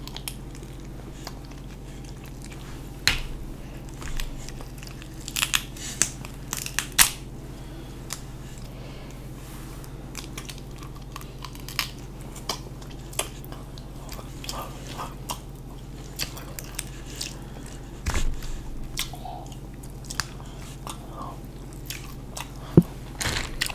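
Close-miked eating of crab legs: biting and chewing, with irregular sharp cracks and clicks as the shell sections are bitten and pulled apart.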